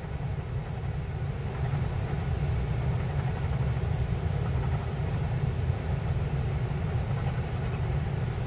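A dollar coin scraping rapidly back and forth over a scratch-off lottery ticket, rubbing off the coating in a steady, dense scratching. The coating is a little tough to scratch off.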